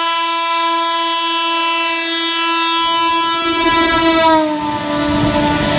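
Electric freight locomotive's horn held in one long continuous blast as it approaches at speed, its pitch dropping about three-quarters of the way in as the locomotive passes. The rumble of the train running on the rails builds from about halfway through.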